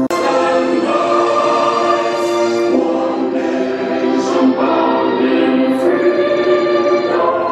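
A large group singing an anthem together in chorus, in slow, held notes that change about once a second.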